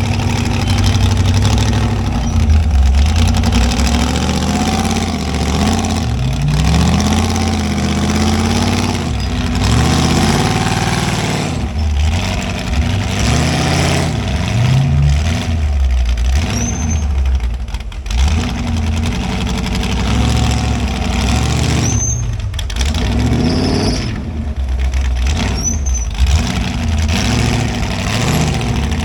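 Off-road rock crawler's engine revving up and down in repeated throttle bursts as it works over rocks, with a few brief high squeaks.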